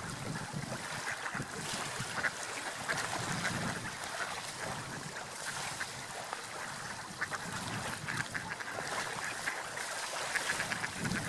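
Ducks quacking: many short calls, scattered and overlapping, over a steady background rush.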